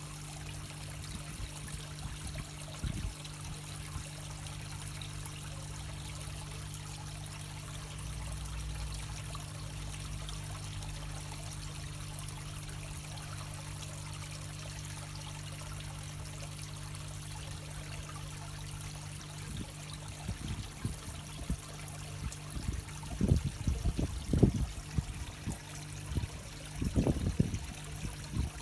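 Garden pond water trickling steadily, over a low steady hum. In the last several seconds, a run of irregular low rumbling bumps rises above it.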